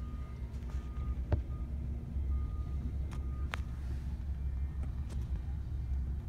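Car cabin noise on the move: a steady low road and engine rumble. A faint high electronic beep repeats about every three-quarters of a second through the first half, with a couple of sharp clicks.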